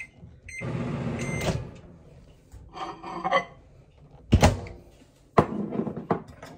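Microwave oven melting butter: short beeps at the start and about a second of running noise, then clatter and a sharp clunk about four seconds in as the door is opened and a glass measuring cup of butter is taken out.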